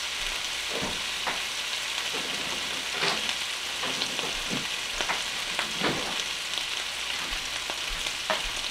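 Chicken, peppers and onions sizzling steadily in frying pans, with several light knocks and clatters now and then.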